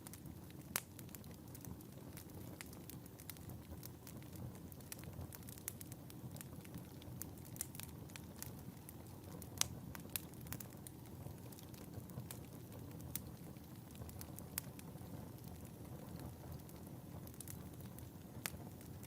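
Wood fire burning in a fireplace: a steady low rumble with frequent sharp, irregular crackles and pops, a few louder ones standing out.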